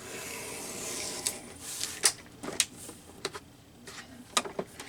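Paper being handled on a craft table: a steady rubbing, scraping sound for about two seconds, followed by several light clicks and taps.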